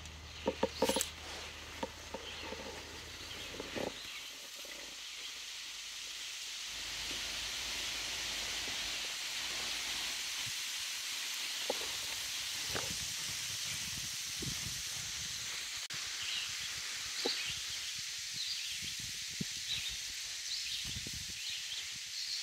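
Breeze rustling through tree leaves, swelling a few seconds in, with birds chirping now and then. A few sharp clicks near the start.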